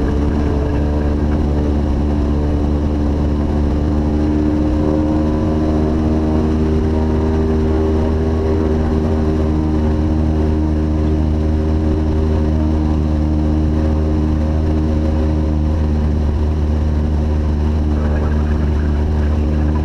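Light aircraft's piston engine and propeller droning steadily, heard from inside the cabin.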